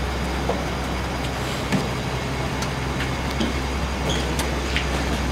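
Low, steady engine hum at idle, with a few small clicks and knocks scattered through it, as a car creeps down a transporter's metal ramps.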